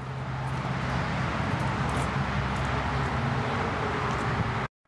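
Steady outdoor traffic noise with a low hum, which cuts off suddenly near the end.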